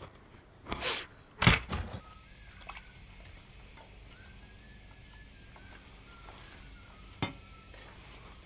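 Two loud, short noises come from the bathroom in the first two seconds. Then there is a quiet room with faint bird chirps, and a single sharp metallic clink about seven seconds in as a steel bowl is set down on a bedside table.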